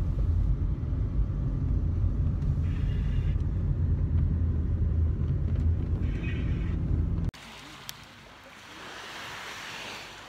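Steady low rumble of a car's engine and tyres heard from inside the cabin while driving. It cuts off suddenly about seven seconds in, leaving a much quieter hiss.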